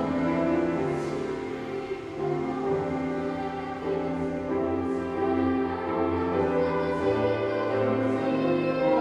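Music with held notes in several parts at once, the chord changing every second or so.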